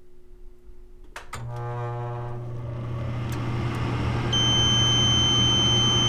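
A couple of sharp clicks as the furnace powers up, then the induced-draft (inducer) motor starts with a steady hum and spins up, growing louder. About four seconds in, a multimeter's continuity beeper starts a steady high tone: the inducer's draft has closed the normally open pressure switch.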